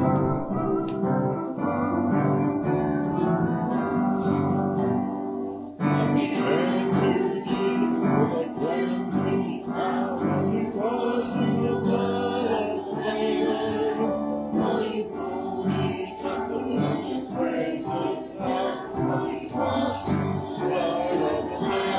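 Worship band music: an instrumental opening, then from about six seconds in a fuller sound with singing over a steady beat.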